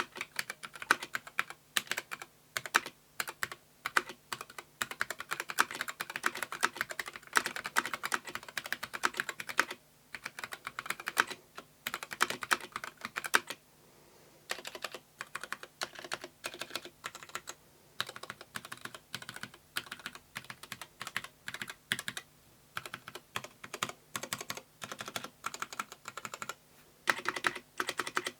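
Typing on an Akko Sakura Jelly mechanical keyboard with an acrylic sandwich case and jelly keycaps: keystrokes clatter in rapid runs, broken by a few brief pauses.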